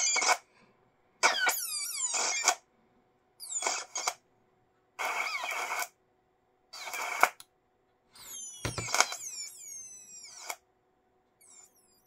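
Laptop audio breaking up while playing a video: short bursts of crackle and high-pitched squeals that slide downward in pitch, each cutting off abruptly into silence, about seven times. It is an audio fault on a laptop with a Nahimic SteelSeries 2-channel HD audio chipset running Debian 12.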